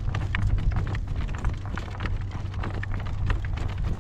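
Horse's hooves clip-clopping at a slow trot, a quick uneven run of hoofbeats over a steady low rumble.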